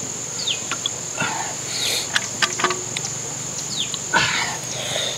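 Steady high-pitched drone of insects, with short falling chirps every second or two and a few light clicks.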